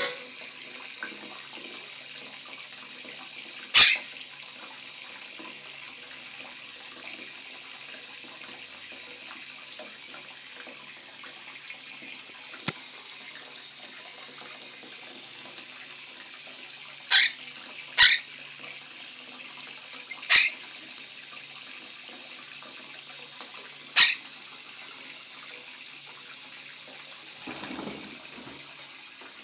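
Bathroom sink tap running steadily into a basin of water. Five brief, sharp, loud sounds cut through it, two of them close together near the middle. Near the end a monk parakeet's wings flutter briefly as it takes off from the sink.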